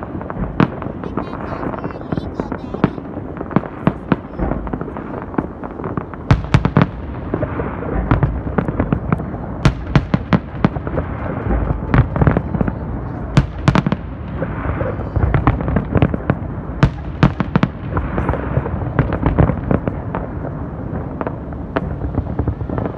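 Aerial fireworks display: a dense, irregular barrage of shell bursts and bangs, several a second at times, over a continuous rumble.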